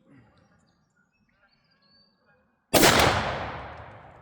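A single 12-gauge shotgun shot from a Mossberg 500 firing a 3-inch Winchester Double X turkey load, about three seconds in, its report rolling away over about a second and a half.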